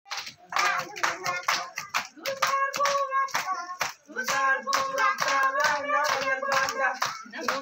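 A group of young children and women singing a song together while clapping their hands in a steady rhythm, with a short break just before four seconds in.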